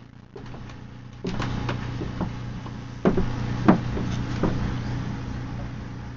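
Irregular knocks and taps against the glass of a terrapin tank, two of them louder about three and three and a half seconds in, over a steady low hum.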